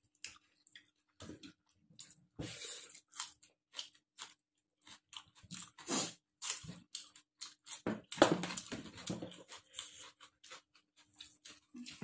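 Close-up eating sounds: chewing and crunching of rice and green chillies, with irregular short mouth and bite noises, busiest about eight seconds in.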